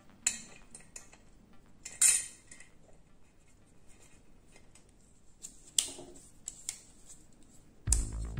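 Scattered clinks and clatters of cookware being handled, a few separate knocks with the loudest about two seconds in.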